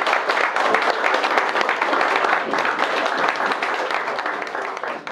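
A room of guests clapping and applauding, the sound dying away near the end.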